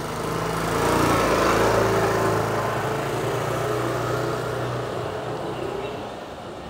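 Automatic motor scooter engine pulling away and riding off, loudest about a second or two in, then fading into the distance.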